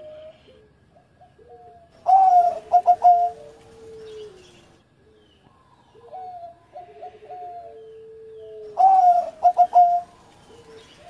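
Zebra dove (perkutut) cooing: two loud song phrases, each a strong opening note followed by a few quick short notes, with softer cooing in between.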